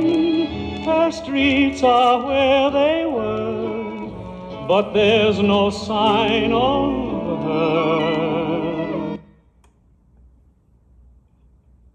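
Music with a singer using a wide vibrato, played from a vinyl LP on a Panasonic SD-85 record-player stereo. It cuts off suddenly about nine seconds in, leaving only a faint low background noise.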